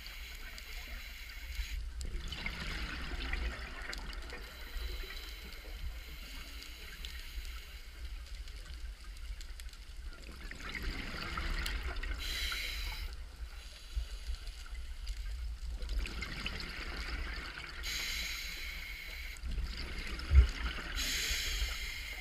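Scuba diver's exhaust bubbles rushing from the regulator in three bursts of two to three seconds, about eight seconds apart, heard underwater through the camera housing over a steady low rumble.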